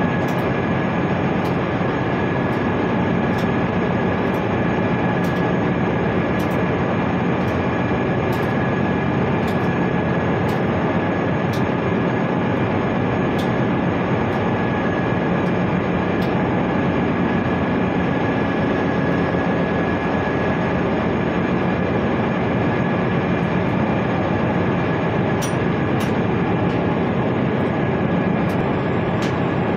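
Ship's machinery running: a steady, loud drone with a constant high whine over a low hum, unchanging throughout, with faint regular ticking on top.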